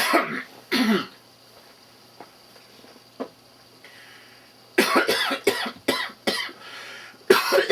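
A person coughing on purpose as a vocal improvisation: two coughs at the start, a pause, then a rapid string of short coughs about five seconds in, and another burst of coughing just before the end.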